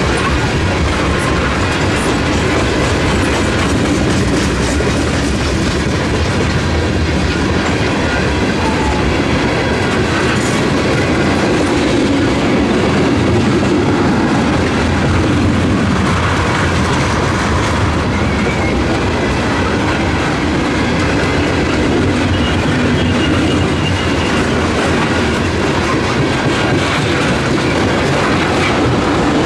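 Freight train of tank cars rolling steadily through a level crossing, wheels clacking over the rail joints and crossing. The crossing's electronic bell rings over it.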